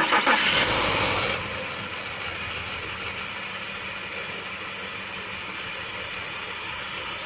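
Car engine just fired up, louder for about the first second and a half and then settling into a steady idle, running with the airflow sensor plugged in and the airbox off while a vacuum leak is being chased; it idles a little better than it did.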